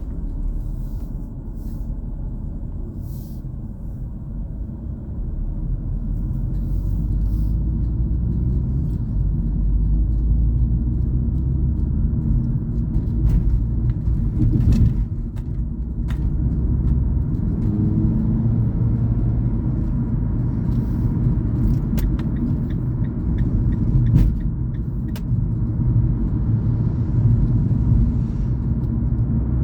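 Low, steady vehicle rumble heard from inside a car cabin, growing louder over the first several seconds. A few sharp clicks come about halfway through and again later.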